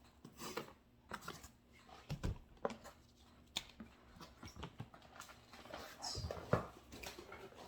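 Handling of a boxed album and its packaging: irregular clicks, scratches and rustles, with soft thumps about two seconds in and again near six seconds as the heavy box is moved.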